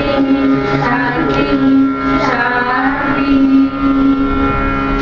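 Prayer song sung into a microphone: a singing voice gliding over a steady held tone that lasts throughout.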